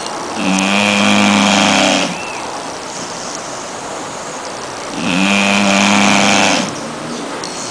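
American Staffordshire Terrier puppy snoring in its sleep: two long, loud snores about four and a half seconds apart, each a steady pitched drone lasting about a second and a half. A steady background noise runs between them.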